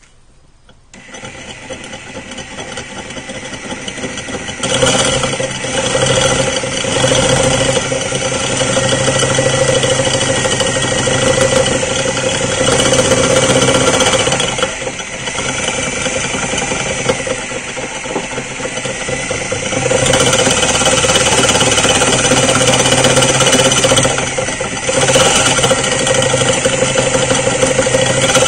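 Electric drill turning a masonry bit through a hard ceramic toilet-cistern lid, pushed slowly. The motor picks up about a second in and runs loud from about five seconds, easing off briefly a few times, while the bit grinds in the glaze with a high whine that comes and goes.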